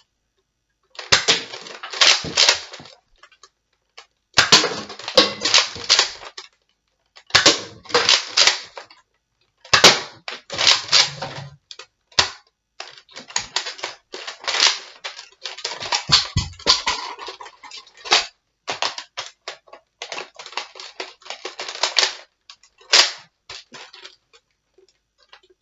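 Nerf Raptorstrike bolt-action dart blaster being cocked and fired over and over: groups of sharp plastic clacks and snaps, each group about a second or two long, with short pauses between.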